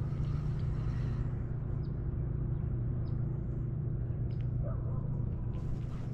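Steady low hum and rumble of the kayak's electric trolling motor running, with a few faint ticks over it.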